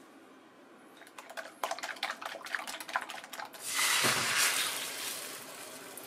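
A run of quick clicks and taps from kitchen prep, then about four seconds in a sudden loud sizzle as beaten egg with sliced sausage and cherry tomatoes hits a hot oiled frying pan, the sizzle easing off to a steady fry.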